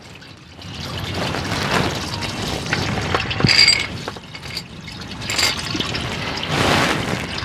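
Used engine oil pouring from the drain hole of a Ford 3.5L EcoBoost V6 oil pan, the stream splashing off the stabilizer bar and into a drain pan. The splashing swells and eases, loudest about three and a half seconds in.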